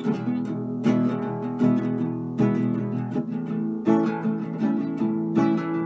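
Small acoustic guitar strummed in chords, one strum about every three quarters of a second.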